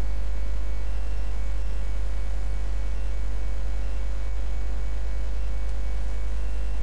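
Steady low electrical mains hum with faint hiss, carried by the recording.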